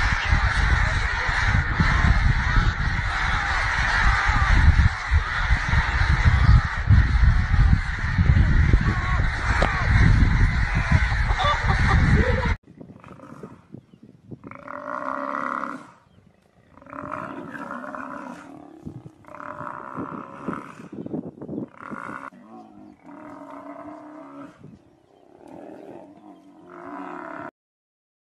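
Chickens fighting: a loud, dense clamour of squawking and scuffling that cuts off suddenly about halfway through. Then an African buffalo bellows in distress as lions attack it, a string of separate calls each a second or two long.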